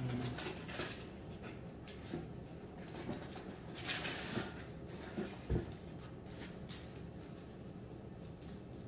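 Faint paper rustling and light handling noises as a receipt is looked through, with a brief louder rustle about four seconds in and a dull thump a little past halfway.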